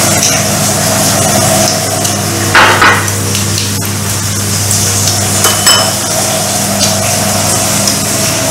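Chopsticks and spoons clinking against porcelain bowls and plates while eating, with a louder clatter about two and a half seconds in and a ringing clink a few seconds later. Under it, the steady hum of electric fans.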